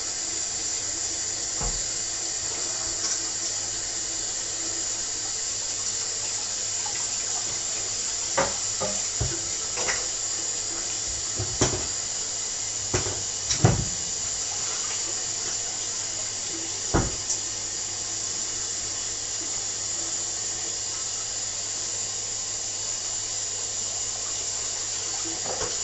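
Steady hiss of water running in a kitchen sink, with a few sharp clinks and knocks of utensils, the loudest near the middle.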